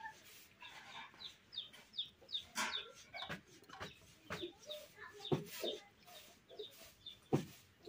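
Chickens clucking, with many short high chirps, over the sounds of two people eating with their hands: a handful of sharp smacks and clicks.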